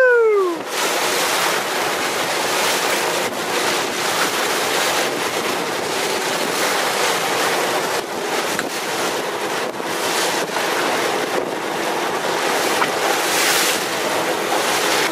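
Steady wind buffeting the microphone over rushing water and a boat engine running. A falling whoop fades out in the first half second.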